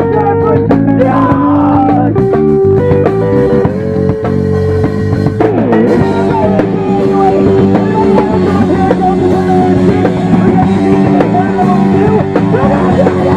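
Live rock band playing loud: electric guitar and a drum kit pounding along.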